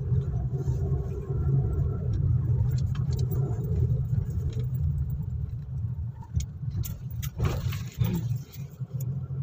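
Steady low engine and road rumble of a car driving, heard from inside the cabin, with a brief sharper sound about seven and a half seconds in.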